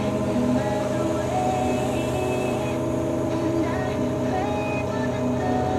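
A heavy vehicle engine running steadily at idle, heard from inside the cab.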